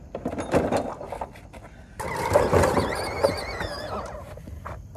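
A plastic kids' ride-on toy rattling and clattering as it is pushed over pavers and grass. From about two seconds in there is a louder stretch with a wavering high squeal.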